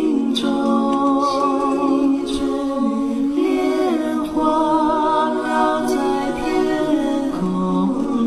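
Slow Mandarin song sung by several voices in harmony, the notes held long with a slight vibrato.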